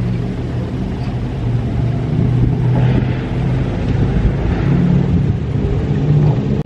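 Road traffic: a steady low rumble of car engines, growing a little louder about two and a half seconds in.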